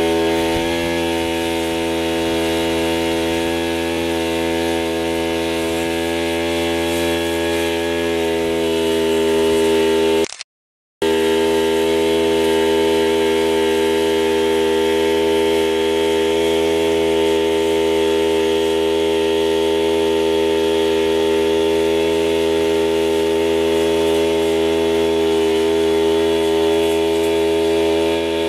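A small engine running steadily at one constant pitch, cutting out completely for about half a second around ten seconds in.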